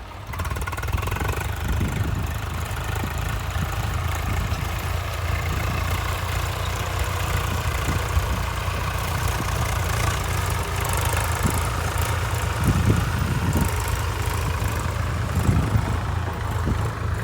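Engine of a tractor ploughing a paddy field, running steadily under load, with a rough clattering noise over a low, even hum.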